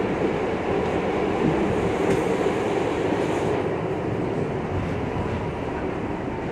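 R62A subway car running on the 6 line, heard from inside the car: a steady rumble and rattle of wheels on rail. It quiets slightly a few seconds in.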